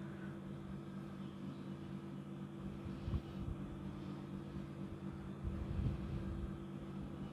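A steady low hum, with faint wiping of a cloth across a glass-top gas stove and a soft knock about three seconds in and another near six seconds.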